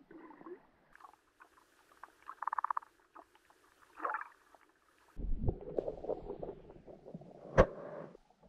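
Muffled underwater noise picked up by a GoPro lying on the seabed: scattered clicks and crackles, with a quick rattle of clicks a couple of seconds in. After about five seconds comes a low rumble, with one sharp knock near the end.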